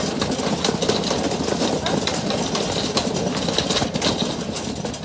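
Loaded supermarket shopping cart rolling along a store floor, rattling steadily with many small clicks.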